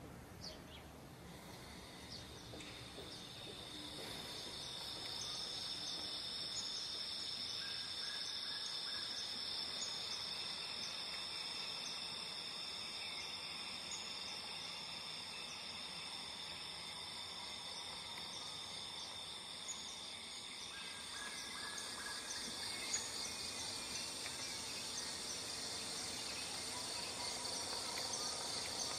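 Tropical rainforest insect chorus: steady, high-pitched, unbroken trilling from many insects, with a second, higher layer coming in about four seconds in, and a few faint bird chirps.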